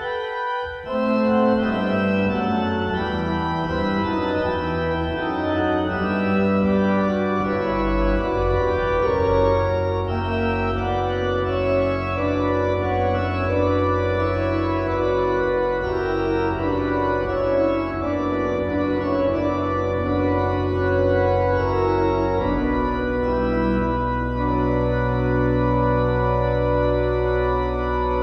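Johannus Live III digital organ voiced with a Sauer-Leipzig pipe organ sample, playing a fugal prelude in B minor in several voices. Deep pedal bass notes enter about a third of the way in, and it ends on a long held chord that is released at the very end.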